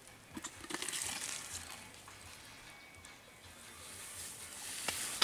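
Water splashing and trickling as a young Asian elephant's ear is washed by hand, with scattered handling clicks and a sharp click near the end.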